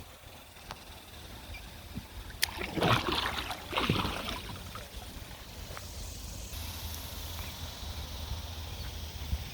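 River water rushing and sloshing through shallow rapids close to the microphone, with two louder splashes about three and four seconds in.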